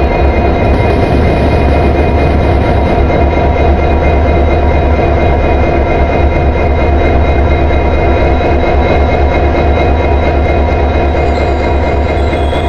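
Train sound effect: a loud, steady low rumble of a train running, with a whine of several held tones over it.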